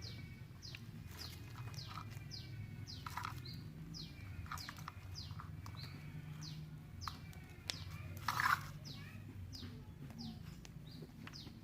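Small birds chirping in the background: many short chirps falling in pitch, one or two a second, over a low steady hum.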